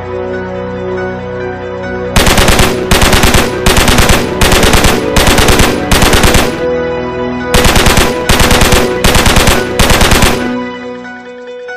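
Dubbed machine-gun sound effect: short bursts of rapid automatic fire, six in a row from about two seconds in, a one-second pause, then four more, over background music that carries on underneath with a held note as the firing stops.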